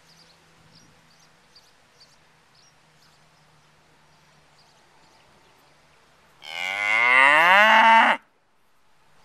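British White cow mooing once near the end, a single call of nearly two seconds that rises in pitch and cuts off abruptly.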